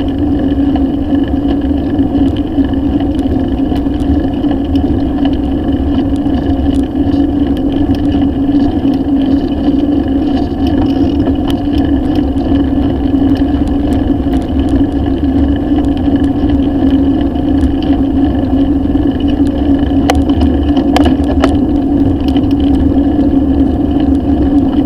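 Steady wind and tyre noise on a camera mounted on a moving bicycle on asphalt, with a few light clicks about twenty seconds in.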